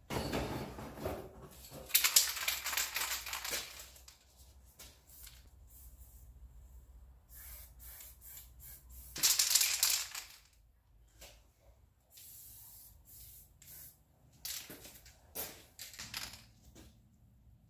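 Aerosol spray-paint can hissing in repeated bursts as paint is sprayed onto paper, the longest about two seconds in and about nine seconds in, with shorter quick spurts later on.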